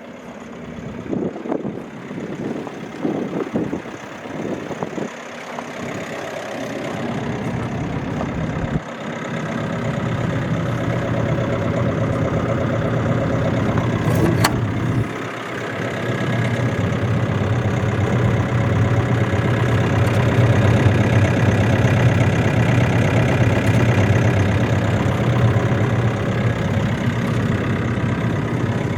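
MQ Power diesel generator running. Uneven knocks for the first several seconds, then from about nine seconds in a steady engine note that grows louder, broken once by a sharp click and a brief dip.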